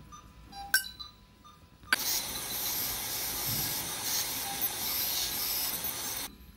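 Compressed air hissing steadily from a dental instrument, starting suddenly about two seconds in and cutting off about four seconds later. A single sharp click comes before it.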